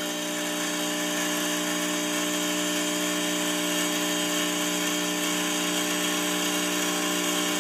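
Salvatore espresso machine's vibration pump running with a steady, unchanging hum as it builds brew pressure against the newly fitted over-pressure valve.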